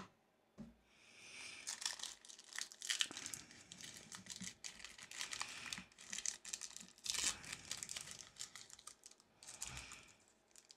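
Foil wrapper of a Pokémon trading card booster pack crinkling and tearing as it is ripped open by hand, with a soft knock just before.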